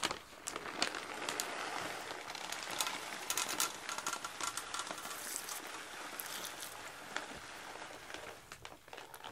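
A steady patter and rustle of small dry food pellets, with many light clicks scattered through it.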